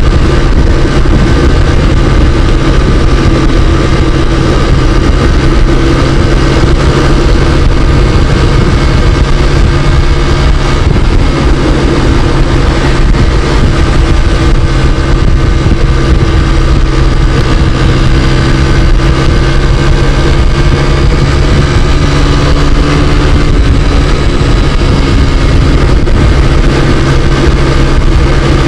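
Scooter engine running steadily while riding at road speed, with a steady whine, under heavy wind noise on the microphone.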